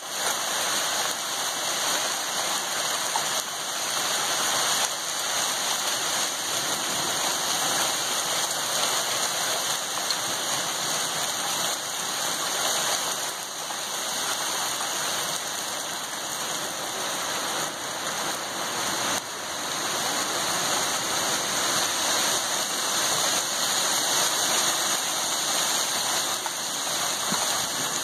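Hail and rain pelting down on a lawn and paved road: a steady, dense patter of many small impacts.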